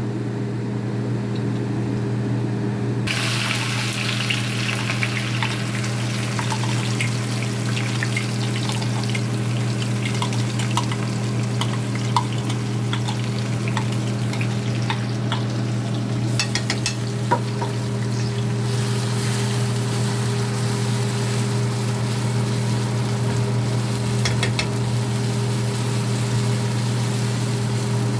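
Food frying in a pan: a hiss of sizzling with small crackles and pops that starts about three seconds in, over a steady low hum.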